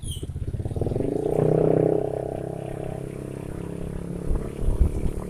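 Engine running, swelling louder about a second in and easing back to a steady run after two seconds, as on a vehicle in motion.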